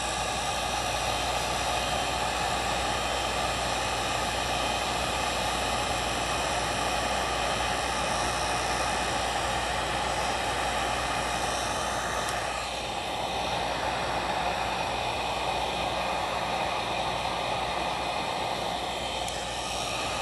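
Hot-air blower running steadily, shrinking heat-shrink tubing over a soldered LED strip joint: a constant rush of air with a fan whine.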